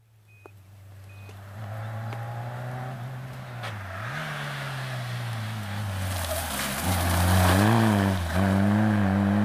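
Rally car approaching at speed, its engine growing steadily louder as it comes closer. The revs dip and pick up again about four seconds in and again near the end as the driver lifts off and gets back on the throttle, with a hiss that is strongest as the car draws closest.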